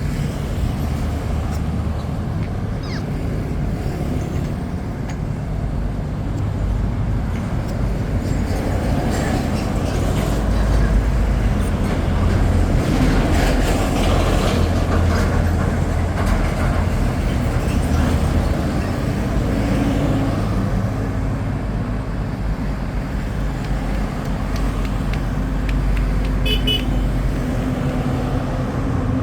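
Steady road traffic with engines rumbling, swelling as a vehicle passes about halfway through, and a short horn toot near the end.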